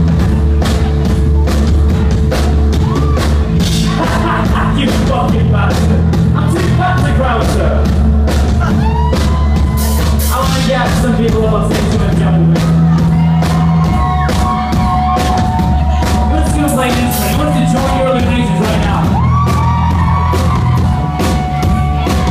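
Live rock band playing loud: electric guitar, bass and drums keeping a steady driving beat, with a singer's voice over the top and the crowd shouting along.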